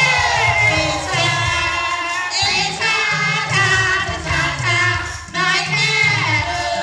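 Several voices, men and women together, singing a Thai pleng choi folk song through microphones and a PA, with a group joining in.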